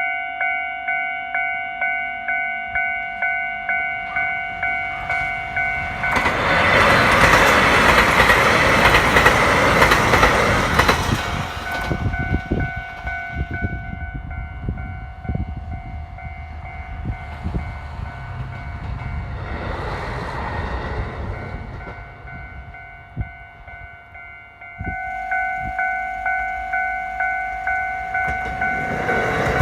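A Japanese level-crossing warning bell rings with a steady repeating electronic ding, about one and a half strokes a second. About six seconds in, a diesel train rushes loudly past the crossing for about five seconds, then its wheels click over the rail joints as it draws away. The bell falls silent, then starts ringing again a few seconds before the end, signalling the next train.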